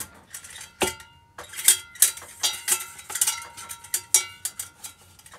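Titanium camping pan and pot clinking and knocking together as they are handled and packed, with a run of sharp metallic taps, several leaving a brief bell-like ring; the strongest knock comes about a second in.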